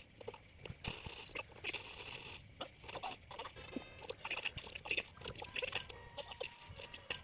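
A steady run of many short animal calls, chirps and croaks, with one brief pitched call in the middle.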